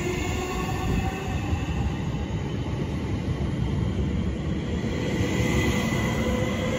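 Southeastern electric multiple unit passing through the station at speed: a steady rumble of wheels on the rails with faint whining tones that slowly shift in pitch.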